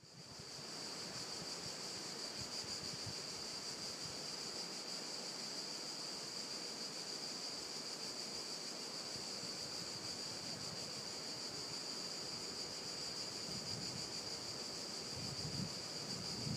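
Steady, high-pitched drone of a cicada chorus, unbroken throughout, with wind rumbling on the microphone near the end.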